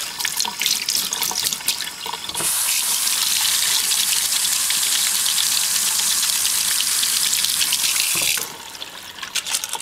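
Kitchen tap running into a stainless steel sink while parts are rinsed under it: scattered splashes at first, then a steady full stream of water from about two and a half seconds in, easing off near the end.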